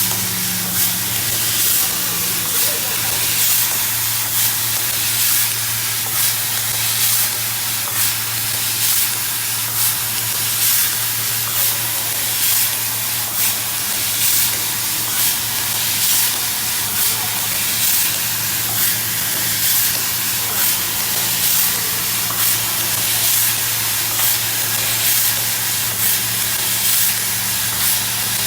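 Industrial furniture-making machine running: a steady low hum under a constant hiss, with regular short hissing pulses repeating through the sound.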